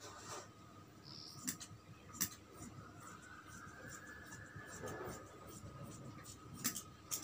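Large tailor's scissors cutting a long strip of cloth: the blades scrape along the fabric, with a few sharp clicks of the blades snapping shut and the cloth rustling as it is moved.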